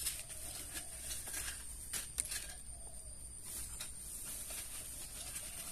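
Faint drips and small splashes of muddy water as a hand scoops through a basin and lets the mud run off its fingers, with a few soft ticks.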